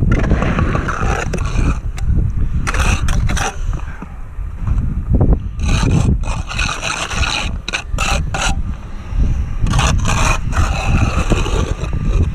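Steel brick trowel scraping and knocking wet mortar on a brick course, in several short bursts of strokes, over a steady low rumble.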